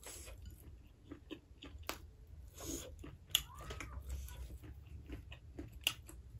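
Close-miked chewing of a mouthful of dal bhat: wet mouth clicks and smacks, irregular and short, with a couple of slightly longer wet smacks in the middle.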